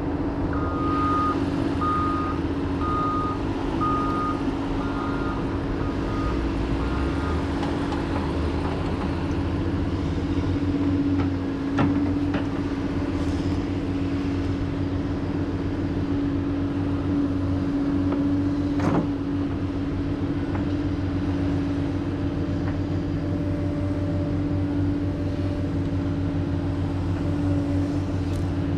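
Cat excavator running steadily under load, its travel alarm beeping about once a second for the first seven seconds. A few sharp knocks come through near the middle.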